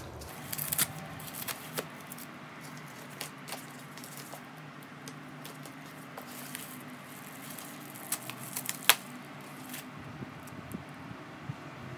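Faint desk-handling noises: scattered light clicks and taps, with one sharper click about nine seconds in, over a steady low hum.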